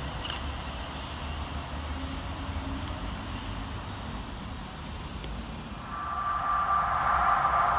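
Low rumble of a train fading into the distance. About six seconds in, another train approaches, and a louder rushing sound with a steady whine builds up.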